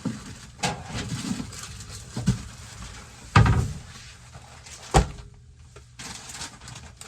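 Groceries being handled and set down: four knocks and thuds, the loudest about three and a half seconds in, with light rustling between them.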